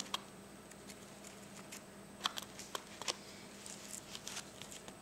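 Faint light taps of a washable felt-tip marker dotting through holes in a paper template onto canvas, with a few clearer ticks between about two and three seconds in.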